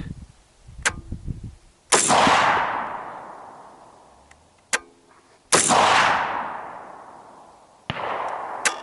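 Three AR-15 rifle shots, a few seconds apart, each followed by a long rolling echo that dies away over about two seconds. Lighter sharp clicks and a short metallic ring fall between the shots.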